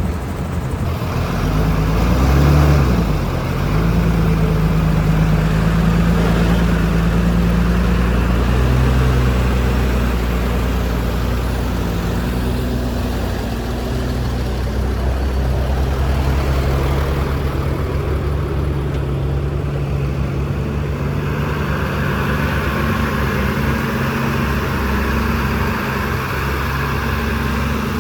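Heavy diesel engine of construction machinery running steadily, revving up and back down briefly about two seconds in.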